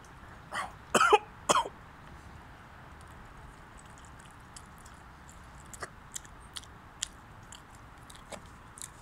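A man coughs and clears his throat in three quick bursts about a second in, a reaction to the burn of a ghost pepper he has just eaten. A few faint clicks follow.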